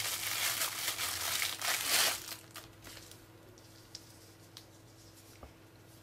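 Thin clear plastic bag crinkling as it is handled and pulled off, for about two seconds. After that come only a few soft rustles and clicks.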